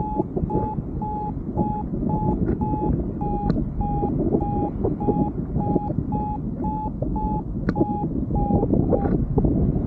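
Paraglider's flight variometer beeping at a steady pitch, about two short beeps a second, the tone it gives in rising air. Wind rushes over the microphone throughout, and the beeping stops shortly before the end.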